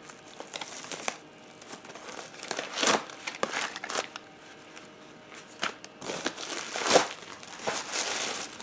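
Packaging being handled and opened by hand: crinkling and rustling in irregular bursts, with a few louder crackles about three and seven seconds in.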